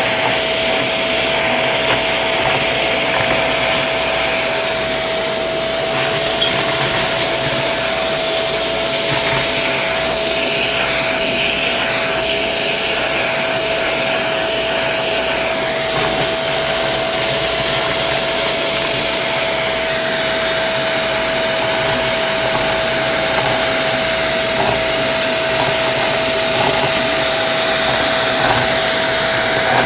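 Shark vacuum running with its crevice tool sucking up a pile of sequins and confetti from carpet: a steady motor whine with one constant tone, and a crunchy crackle of pieces being drawn up the tool.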